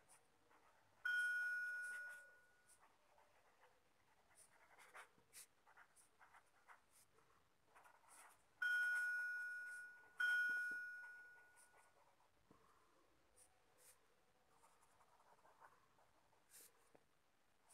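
Pen scratching on paper in short strokes while handwriting. Three loud bell-like dings cut in, one about a second in and two close together around eight and ten seconds, each ringing out over a second or two.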